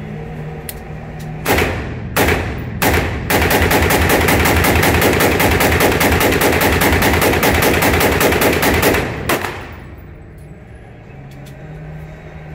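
AR pistol fired in an echoing indoor range: three single shots, then a long fast string of shots lasting about six seconds, then one last shot. The gun is being test-fired on a freshly changed buffer spring, meant to cure its failures to go into battery.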